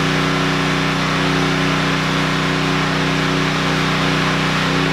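Generator engine running at a steady speed under the load of the shop lights, an even droning hum that does not change.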